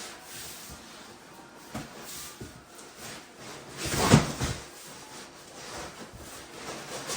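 Cardboard packaging being handled: scattered rustles and light knocks, with a louder scraping thud about four seconds in as the boxes are shifted.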